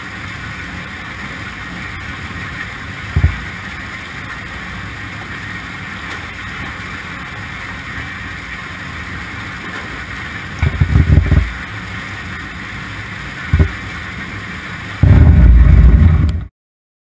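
Potato washer barrel running with the camera inside the drum: a steady rush of water spray and tumbling potatoes, broken by heavy low thumps a few times, the longest and loudest near the end, then a sudden cut-off.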